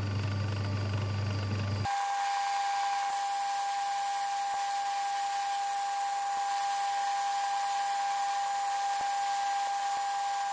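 Metal lathe running while a cutter turns down a thin aluminium bar. A steady low machine hum gives way, after a cut about two seconds in, to a steady high-pitched whine.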